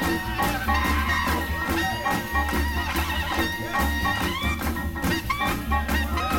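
Upbeat jazzy theme music with a steady, pulsing bass beat.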